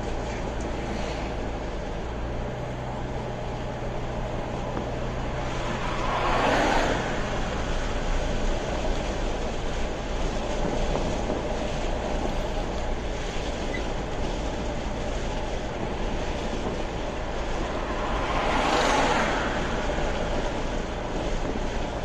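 Steady road noise heard inside a moving car at highway speed: tyre and engine drone with a low hum. Two brief swells of louder noise come about six seconds in and again near the end.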